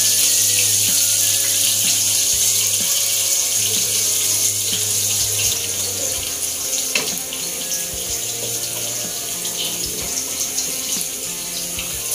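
Chopped garlic sizzling in hot oil in a wok, a steady crackling hiss, with a few light scrapes of a wooden spatula stirring it.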